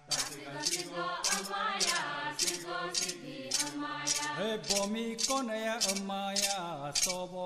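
A man chanting a ritual chant in a held, sing-song melody, with a metallic jingle struck about twice a second in steady rhythm behind the voice.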